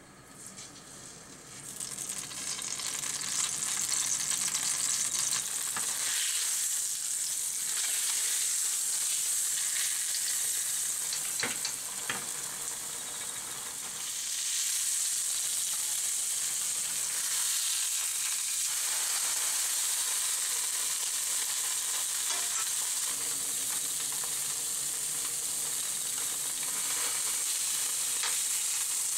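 A block of drained firm tofu sizzling in hot oil in a nonstick frying pan, the sizzle swelling up over the first few seconds after the tofu goes in and then holding steady, with a couple of light clicks midway.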